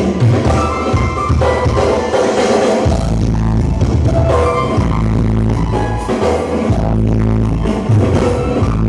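Music with drums and a heavy bass line, played loud through a newly installed speaker system as a sound check.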